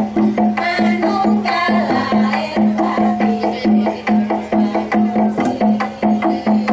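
Gejog lesung: wooden pestles knocking on a wooden rice-pounding trough in an interlocking rhythm. A steady pitched knock falls about twice a second, with quicker knocks in between.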